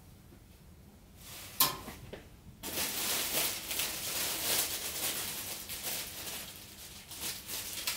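Rustling from clothing being handled, starting abruptly about two and a half seconds in after a single click, with no speech.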